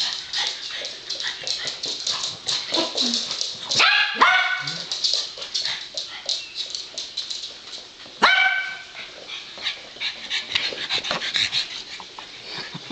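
Young dachshund and Boston terrier at play, letting out sharp yips and barks that are loudest about four and eight seconds in. Between the calls there is rapid clicking, most likely claws on a laminate floor.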